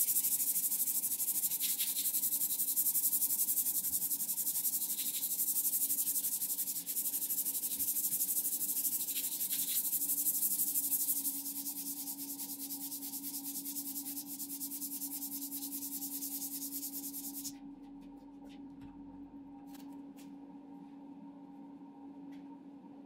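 A cloth-backed abrasive strip is pulled quickly back and forth around the steel head of a hammer clamped in a vise. It makes a steady rasping hiss that stops sharply about three quarters of the way through, followed by a few light clicks as the head is handled. A steady low hum runs underneath.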